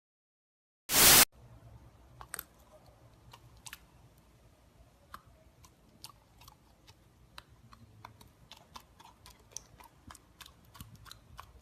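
A short loud burst of noise about a second in, then faint, irregular small clicks and ticks, a few a second.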